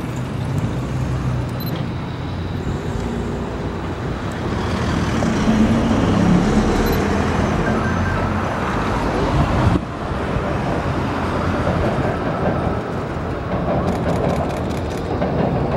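Steady city traffic rumble, swelling for a few seconds and dipping suddenly a little past the middle.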